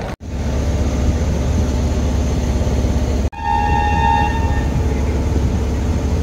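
Motorboat engine running with a steady low drone. A little over three seconds in, after a brief break, a high steady horn tone sounds for about a second and a half.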